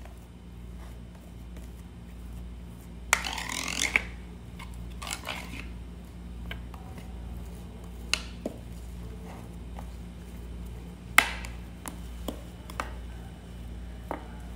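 Metal spoon scraping and clinking against a plate while smoothing and hollowing thick asida dough: a longer scrape about three seconds in and scattered sharp clinks, over a steady low hum.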